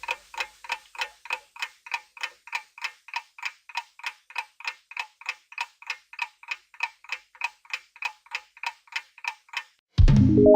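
Clock-ticking countdown timer sound effect, about three even ticks a second, timing the answer to a quiz question. The ticking stops near the end and a loud ringing musical hit with a deep thud comes in.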